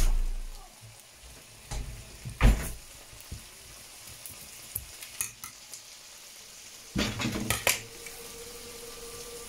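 Squid rings in tomato sauce sizzling in a nonstick frying pan. A wooden spatula stirs and knocks against the pan about two and a half seconds in, and again in a quick cluster around seven seconds in.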